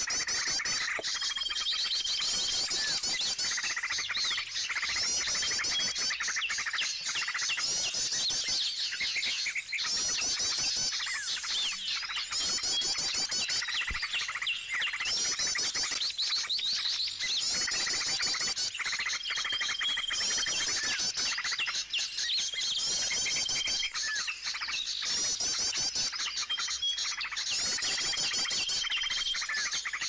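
A flock of small birds chirping and twittering densely and without pause, with a short, steady high whistle repeating several times; small birds gathering to a bird-trapper's lure.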